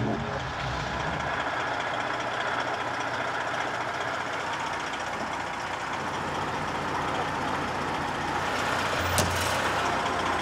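Kenworth semi-truck's diesel engine running steadily, with a sharp click about nine seconds in and a deeper low rumble coming in near the end.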